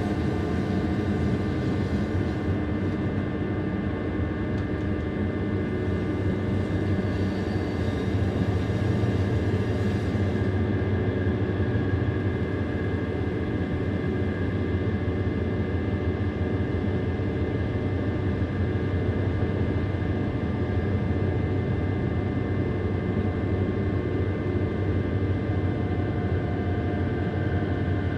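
Electric metre-gauge Bernina line train running steadily, heard from on board: a constant low rumble with a few steady high tones over it.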